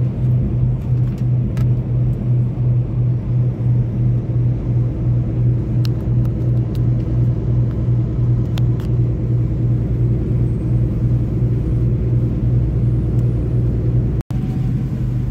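Steady low rumble of a semi-truck running down the highway, heard inside the cab: engine drone and road noise with an even pulsing hum. The sound cuts out for an instant near the end.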